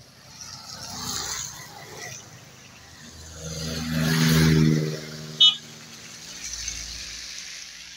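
A car passing along a wet road: engine note and tyre hiss swell and are loudest a little past the middle, then fade. There is a sharp click shortly after the pass.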